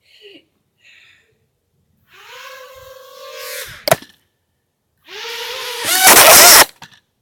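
Small toy quadcopter drone's motors and propellers buzzing close to the microphone in two bursts. The first ends with a sharp knock, and the second, louder one cuts off suddenly.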